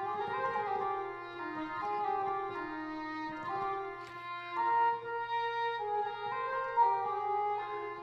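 Sampled cor anglais (English horn) from the Spitfire Symphonic Woodwinds library, Legato patch, playing a slow melodic line. The notes are joined smoothly and change about every half second to a second.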